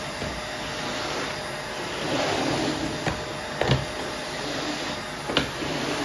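Canister vacuum cleaner running steadily with a faint steady whine, its floor head swept over a wooden floor so the suction noise swells and fades. A few sharp knocks come through, the loudest near the middle and again about five and a half seconds in.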